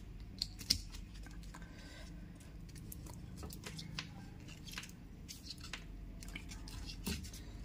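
Quiet handling noise: small scattered plastic clicks and rustles as gloved hands fit wire connectors onto an air-conditioner control circuit board.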